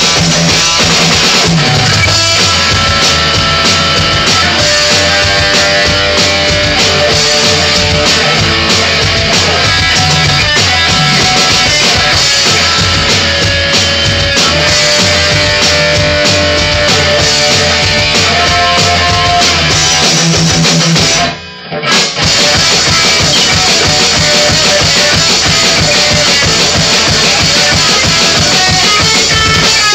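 Rock band of electric guitar and Roland electronic drum kit playing loudly, with a brief sudden stop just past twenty-one seconds in before both come straight back in.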